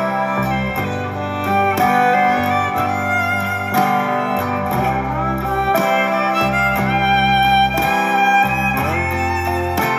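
Instrumental background music: a melody over a sustained bass line, its notes changing about every second.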